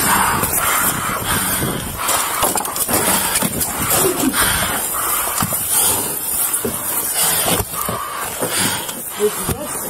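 Rustling, knocking and clatter close to a body camera as someone forces through a door into a smoke-filled motorhome, with a husky whimpering briefly twice.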